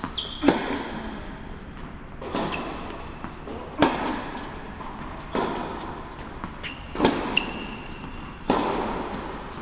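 Tennis ball being struck by rackets and bouncing on an indoor hard court during a rally. There is a sharp hit about every one and a half seconds, each echoing in the large hall, with short high squeaks between the hits.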